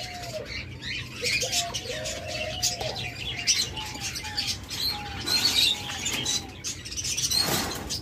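Caged ringneck doves cooing in short, repeated low notes, with high chirps from smaller birds. Wings flap and rustle against the wire cage, loudest near the end.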